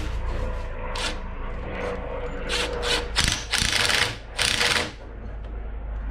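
Cordless drill working into the top edge of a wooden barn door: a steady motor whine, then several short, loud bursts about midway through.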